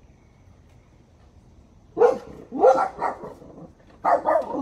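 A dog barking: three barks in quick succession about two seconds in, then two more near the end.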